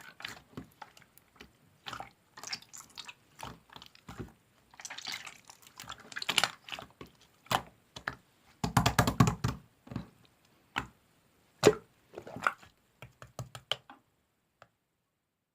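Clear slime being squished and worked by hand, giving an irregular run of sticky clicks, pops and squelches, with a thicker run of squelching about nine seconds in; it stops shortly before the end.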